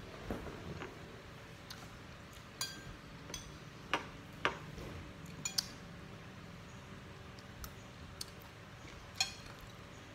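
A metal spoon clinking and scraping against a ceramic plate during a meal: about ten scattered, irregular clinks, a few of which ring briefly.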